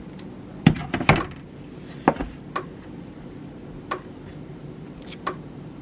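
Handling noise: about six sharp clicks and knocks of hard objects being moved or set down on a hard surface, the loudest two close together about a second in, the rest spaced out after.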